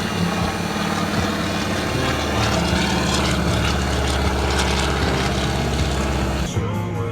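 A heavy vehicle engine running steadily under a low, even hum, with the sound changing abruptly about six and a half seconds in.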